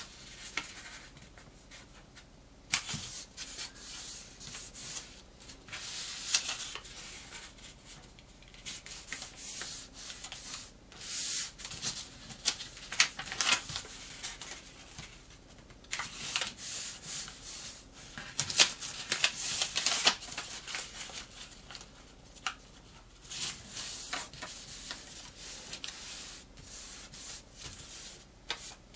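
A square sheet of paper rustling and scraping as its four corners are folded in to the centre and the folds are pressed flat with the fingers. It comes in irregular bursts.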